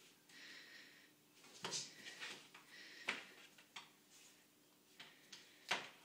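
A cat's paws patting and scraping on a stair as it bats at a cotton swab: soft, scattered rustles and light taps, with a sharper tap about three seconds in and a louder one near the end.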